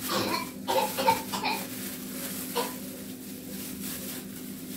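A few brief vocal sounds from a person, clustered in the first second and a half with one more a little later, over a steady low hum.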